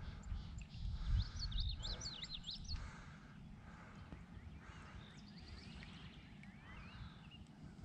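Songbirds singing and calling around a marshy pond: a quick jumble of high warbled notes about a second in, then short rising and falling whistles and high trills later on. A low rumble sits underneath during the first few seconds.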